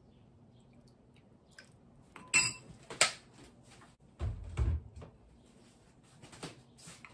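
A metal measuring spoon clinks sharply against a glass mixing bowl twice, followed by a dull low thump and a few light taps near the end.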